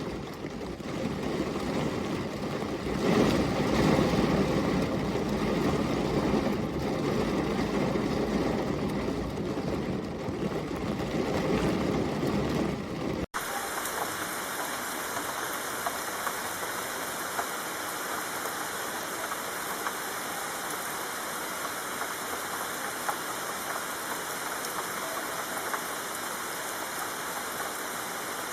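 Steady rain noise with no distinct drops or birdsong. The first part is deeper and rumbling, then about 13 seconds in it cuts abruptly to a brighter, even hiss of rain.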